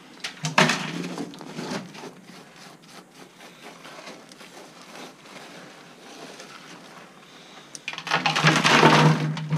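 Loose rock rubble being scraped and handled by hand, a rustling, scuffing clatter with small clicks of stones, in two louder spells: about half a second in and again about eight seconds in.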